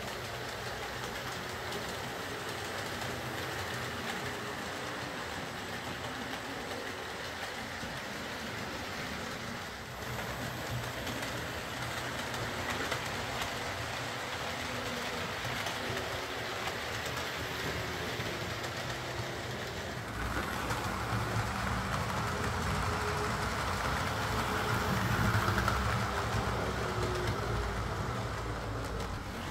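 Hornby OO gauge Class A4 Mallard model locomotive, motor in the locomotive, running around the layout with coaches: the steady hum of the motor and the rolling of the wheels on the track. It has just been repaired and is running again. The sound grows louder about two-thirds of the way through as the train runs closer.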